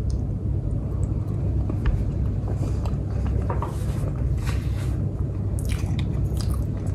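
A person chewing a mouthful of potato, with soft mouth sounds and a few faint clicks, over a steady low hum.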